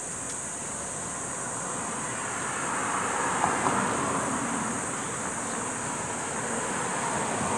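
Steady urban road traffic, swelling as a vehicle passes about three seconds in, over a constant high-pitched insect buzz.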